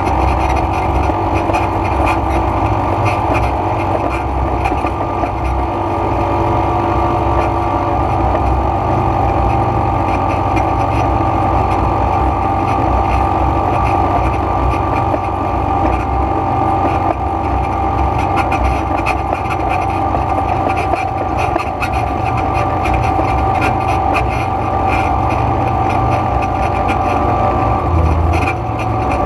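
Quad bike (ATV) engine running steadily at a cruising pace while riding along a dirt track, with a steady low rumble underneath.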